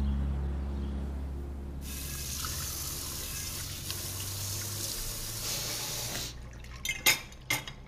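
Kitchen tap running into a sink, turned on about two seconds in and shut off about six seconds in, over a low hum that fades away. A couple of light knocks follow near the end.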